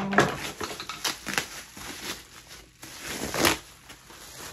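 Packaging rustling and crinkling as it is handled, in irregular bursts with small clicks. A louder rustle comes about three and a half seconds in.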